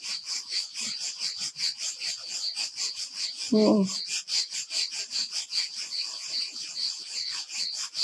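Insects chirping in a high-pitched, fast and even pulsing rhythm that carries on without a break. A short murmur from a woman's voice comes about three and a half seconds in.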